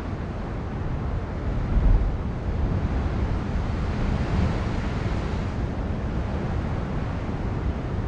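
Wind buffeting the microphone over ocean surf washing onto a rock platform, with a louder gust about two seconds in and a swell of wash around four to five seconds in.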